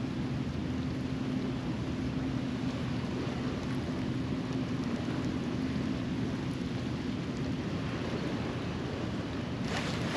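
Boat motor running steadily with wind rushing over the microphone; the motor's low hum drops away near the end.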